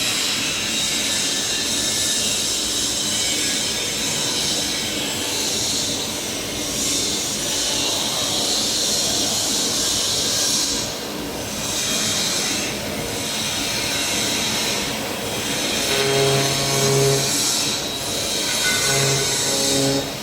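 CNC knife cutting machine working PP honeycomb board: a steady, loud hiss from the cutting head and its hold-down, dipping briefly several times as the head moves. From about three-quarters of the way through, short low humming tones come and go alongside it.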